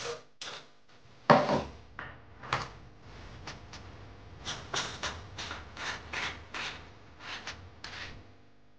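Hands working a PVC drain fitting into the drain hole of a shower floor: a knock about a second in, then a run of short rubbing and scraping strokes against the grit of the mortar bed.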